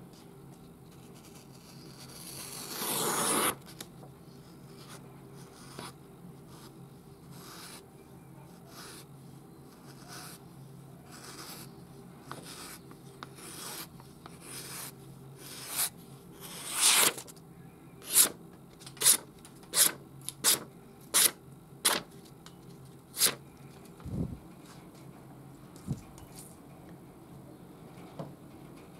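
Paper being sliced by a freshly sharpened knife blade in a paper-cutting sharpness test. There is one longer cut about three seconds in, then a quick run of about ten short, crisp slices around the middle.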